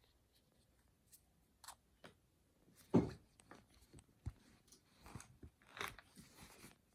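Handling of unboxed items and their packaging: scattered light clicks and rustles, with one louder thump about three seconds in.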